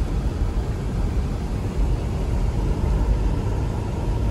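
Car driving on a snowy road, heard from inside: a steady low rumble of tyres and engine.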